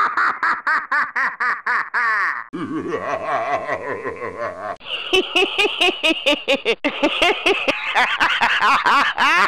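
Laughter sound effects: several different laughs cut one after another. A fast, high-pitched laugh of rapid ha-ha pulses switches about two and a half seconds in to a lower-pitched laugh, then about five seconds in to another fast, high-pitched laugh.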